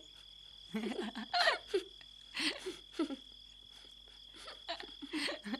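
Several short bursts of soft giggling from a woman and a boy, over a steady high cricket trill.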